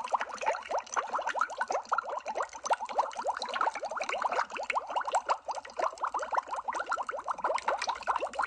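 Bubble sound effect: a steady stream of water bubbles bubbling, heard as a dense run of short rising blips.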